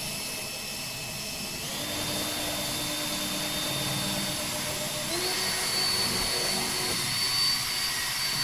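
A small electric motor running steadily with a whine that steps up in pitch twice, about two seconds in and again about five seconds in.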